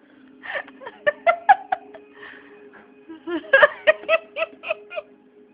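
A woman laughing hard in two bouts of rapid "ha-ha" pulses, the first about half a second in and the second, louder one around three and a half seconds in.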